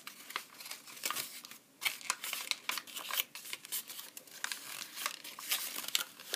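A sheet of thin origami paper rustling and crinkling in the hands as it is creased and folded: an irregular run of soft crackles and rustles.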